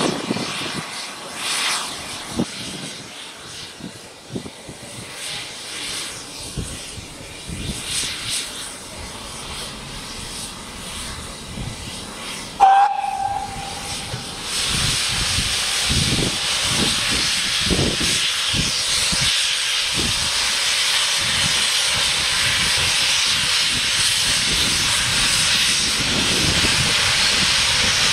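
A steam locomotive's whistle gives one short blast about halfway through. A second or two later a loud, steady hiss of escaping steam starts up and keeps going.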